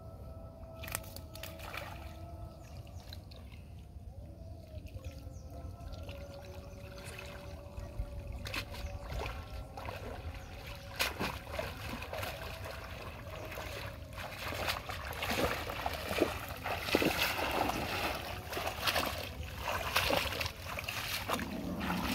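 Pond water sloshing and trickling as a cast net is hauled in through the shallows. The splashes grow louder and more frequent in the second half as the net full of fish is drawn out to the bank.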